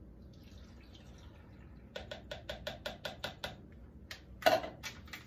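Pomegranate juice poured from a measuring cup into a punch bowl of ice and frozen fruit, followed by a run of quick light clinks, about six a second, and one sharper knock near the end.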